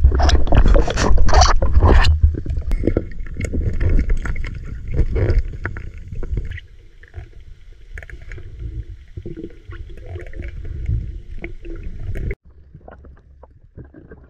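Water noise on an underwater camera: loud, choppy churning and knocking for the first couple of seconds, settling after about six seconds into a quieter, muffled rumble with scattered clicks, which cuts off suddenly near the end.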